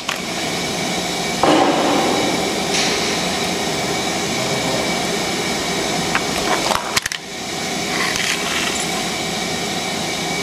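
Steady running hum of a hydraulic power press's motor and pump, with a few knocks and clicks, the sharpest a quick crackle about seven seconds in.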